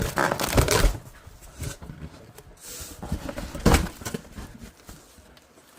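Packaging being handled and rummaged through during an unboxing: crackly rustling in the first second, scattered light knocks, and one sharp knock a little before four seconds in.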